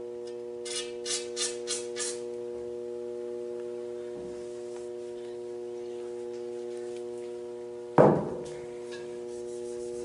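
Five short hisses of a WD-40 aerosol can spraying into a flintlock rifle barrel, about a second in, over a steady hum of several tones. A single sharp knock about eight seconds in is the loudest sound.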